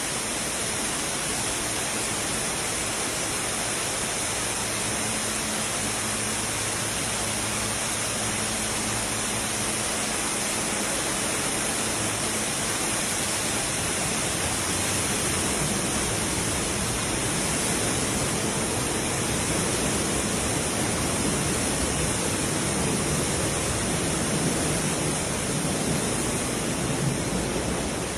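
Steady roar of torrential hurricane rain and rushing water, growing a little fuller and louder about halfway through.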